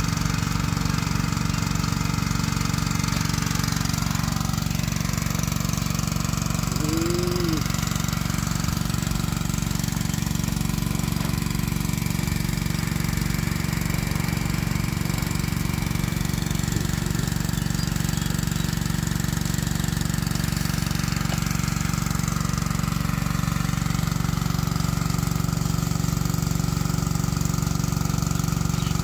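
A small engine running steadily at a constant speed, with an even, rapid pulse. A brief chirp about seven seconds in.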